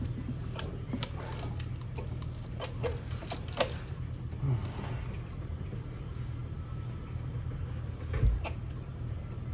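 Clicks and knocks of an ignition coil and its connector being handled and fitted on the engine, several in the first four seconds and a louder knock about eight seconds in, over a steady low hum.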